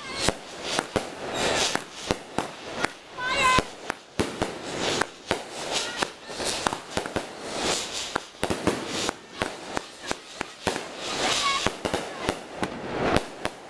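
Consumer aerial fireworks bursting overhead: an irregular, rapid string of sharp bangs and crackling reports, several a second.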